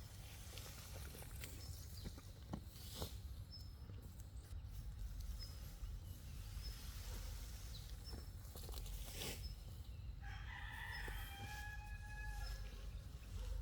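A rooster crows once, about ten seconds in, one drawn-out call lasting a couple of seconds. A few faint knocks come before it.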